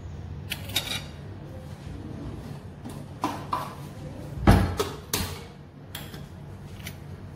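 Kitchen clatter: a string of clicks and knocks from utensils and cookware, the loudest a heavy thump about halfway through, over a low steady hum.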